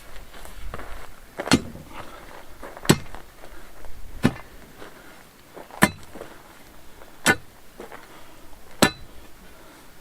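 A metal digging tool striking hard, stony ground with a clink, six steady blows about a second and a half apart: post holes being dug by hand in compacted earth.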